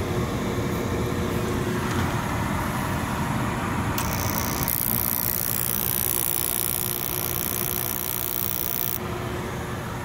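Carrier gas package unit running steadily, its draft inducer turning while the furnace retries ignition. About four seconds in, a high crackling hiss from the spark igniter arcing starts, and it stops sharply about five seconds later.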